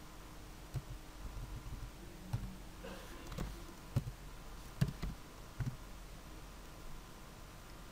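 A few faint, scattered keystrokes and clicks on a computer keyboard and mouse while values are entered into a spreadsheet-like form, over a low steady hum.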